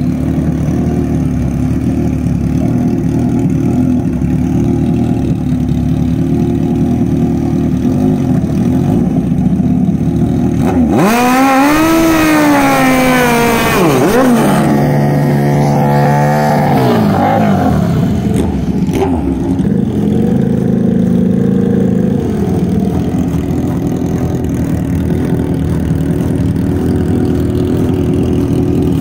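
Suzuki Katana drag bike's inline-four engine running at low revs, then revved hard in a burnout about eleven seconds in, with the rear tyre spinning. The pitch climbs and falls over a few seconds, then holds steady and high for a couple of seconds before dropping back. A shorter rev comes a few seconds later, then it settles back to low revs.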